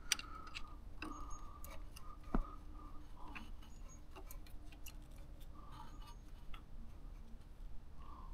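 Faint, scattered light clicks and taps from a hand feeling among the carburettor parts of the Trabant 601 engine for an adjustment screw.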